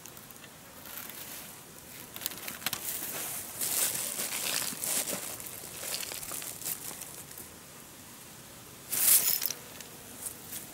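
Irregular rustling and crinkling close to the microphone, with a louder burst of rustling about nine seconds in.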